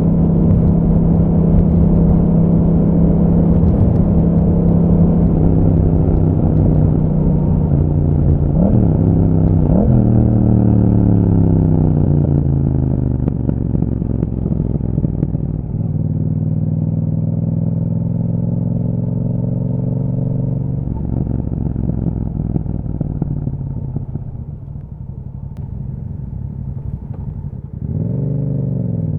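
Yamaha MT-07's parallel-twin engine through an Akrapovic exhaust while riding. It runs steadily at first, gives two short rev blips, then falls in pitch as the bike slows. It drops to low revs and runs quieter, then picks up again near the end.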